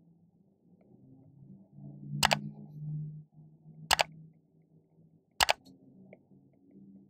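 Three sharp mouse-click sound effects about a second and a half apart, from a like–subscribe–bell animation, over a faint low hum.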